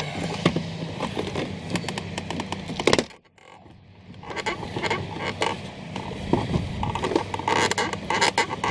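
Plastic door trim panel of a 2008 Audi S6 creaking, with its retaining clips clicking and snapping as it is pried loose from the door; one sharp snap about three seconds in.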